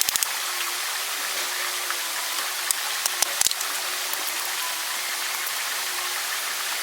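Steady rush of a flowing stream, with a few sharp clicks near the start and again about three seconds in.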